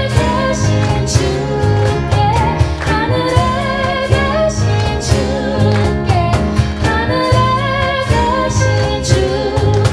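Live acoustic band playing a song: women singing lead into microphones over strummed acoustic guitar, electric bass, keyboard and a steady cajon beat.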